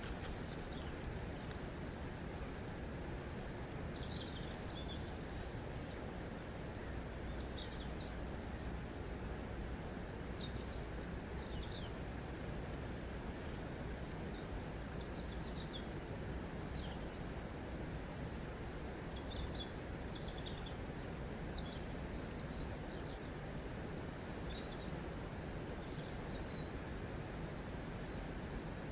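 Small birds chirping and twittering, with many short, high calls scattered throughout, over a steady rush of flowing water.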